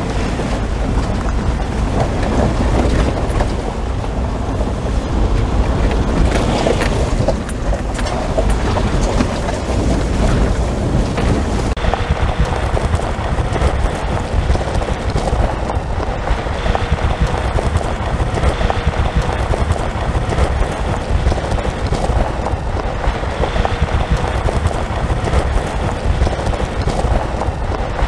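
Car driving on a gravel road: steady tyre noise over loose gravel with the engine's rumble underneath.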